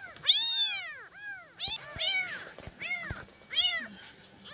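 Cats meowing: about five high-pitched meows, each rising then falling, the first and longest the loudest.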